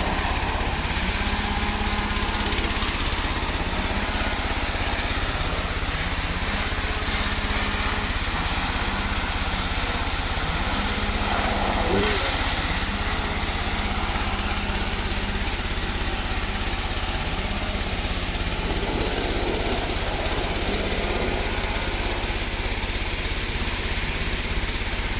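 Engine of a Dong Peng pump running steadily, pumping sand.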